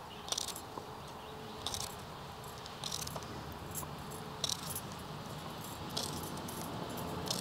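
Plastic food packaging rustling and crinkling in short bursts, about every second and a half, as food is unpacked.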